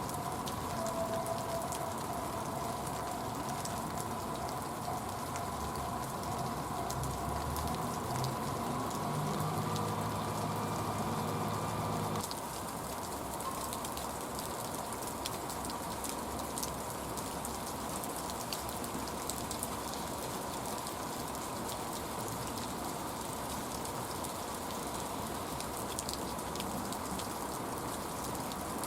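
Heavy rain falling steadily, with scattered sharp ticks of drops striking close by. A low hum with a higher steady tone runs through the first half and cuts off suddenly about twelve seconds in.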